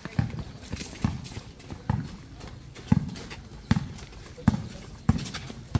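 A basketball bouncing on a hard court: a steady run of low thumps about once every second, with faint voices under it.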